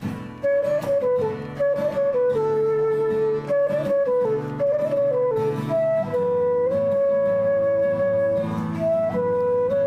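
Flute playing a melody of held and stepping notes over guitar accompaniment; the music starts about half a second in.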